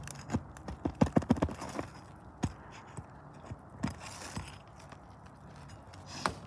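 Sharp knocks and clicks of a steel flat bar being worked under asphalt roof shingles and lifting the tabs: a quick run of clicks about a second in, then a few single knocks spread through the rest.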